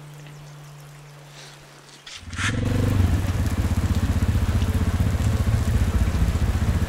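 Motorcycle engine. A faint steady hum for about two seconds, then a much louder engine note with a rapid, even pulse starts suddenly and runs on steadily.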